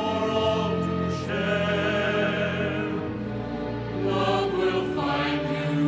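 Music: a choir singing long held notes, the chord changing every second or two.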